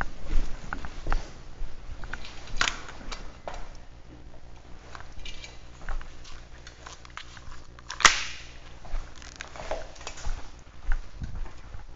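Airsoft replica shots: two sharp cracks, about two and a half and eight seconds in, the second the loudest and echoing in the corridor. Between them come the light footsteps and gear rustle of a player moving through the building.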